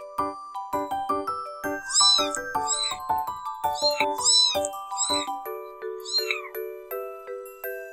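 Newborn kitten mewing: about six short, high-pitched mews, the last a little after halfway through, over light tinkling background music.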